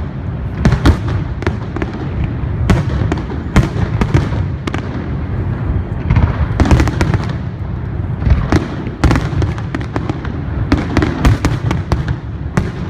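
Fireworks display: many loud bangs of aerial shells going off in irregular quick succession over a continuous low rumble of bursts.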